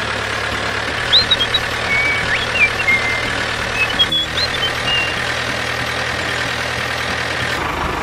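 Dubbed tractor engine running steadily, with a few short high chirps between about one and five seconds in.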